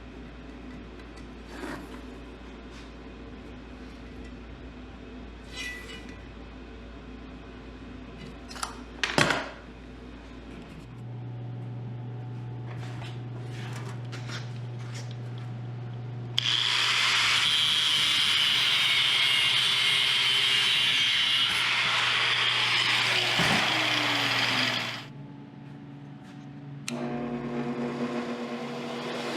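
Power saw running loudly for about eight seconds mid-way, then cutting off, after a stretch of scattered clicks and knocks and a steady low hum.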